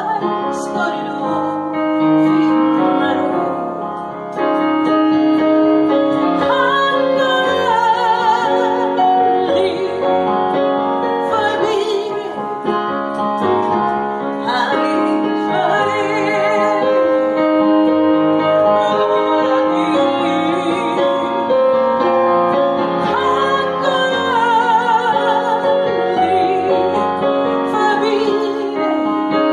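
A woman singing a slow song with vibrato on the held notes while accompanying herself on piano.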